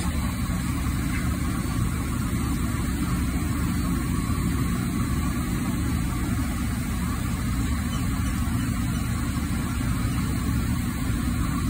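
Steady low machine rumble, even in level throughout.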